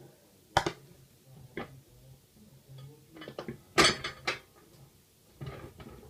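Scattered knocks and clatters of a plate and food being handled on a kitchen counter, with a longer, louder noise about four seconds in.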